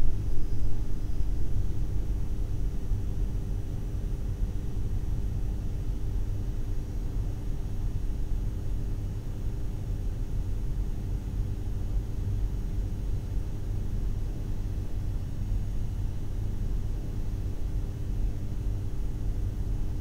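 A steady low rumble with a faint hum over it, easing off a little in the first few seconds and then holding steady.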